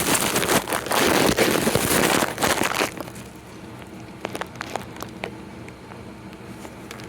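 Rustling and crinkling of the plastic wiring harness and its loom being handled and pulled about for about three seconds, followed by a few light clicks and taps.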